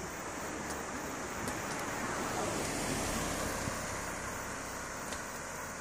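Steady rushing wind noise on the microphone, with a car passing on the road, its tyre noise swelling in the middle.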